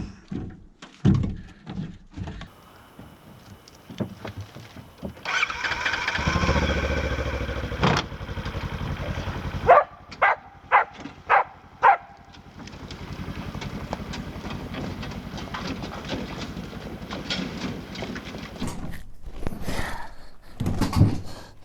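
A small engine running unevenly, rising in pitch for a few seconds about five seconds in. Then come four or five short, sharp, loud bursts between about ten and twelve seconds in, and after that a steadier low running.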